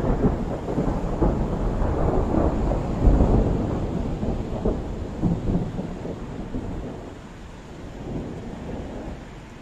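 Thunder: a long, rolling peal that is loudest about three seconds in and slowly dies away, with a smaller swell near the end.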